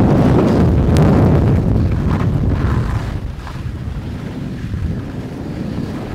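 Wind rushing over the microphone of a skier's body-worn camera during a fast downhill run, with the skis scraping over the snow. It gets quieter about halfway through.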